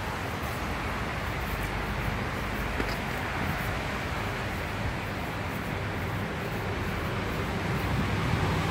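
Steady outdoor background noise: a constant low rumble and hiss with no distinct events.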